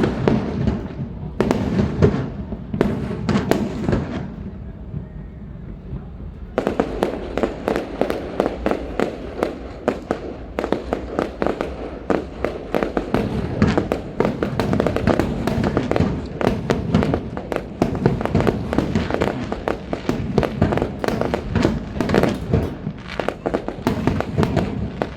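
Fireworks display: a few clusters of sharp bangs in the first four seconds, a short lull, then from about six seconds in a dense, continuous barrage of rapid bangs and crackles.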